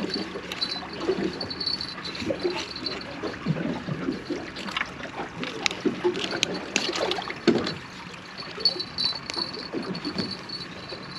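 Water lapping and splashing against a small boat's hull, with scattered clicks and knocks from handling gear on deck.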